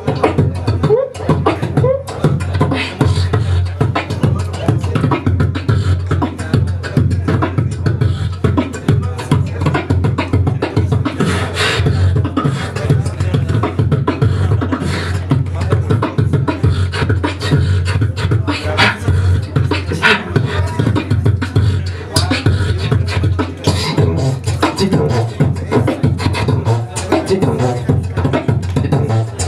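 Solo beatboxing into a cupped handheld microphone: a continuous rhythmic pattern of deep bass hits and sharp clicks.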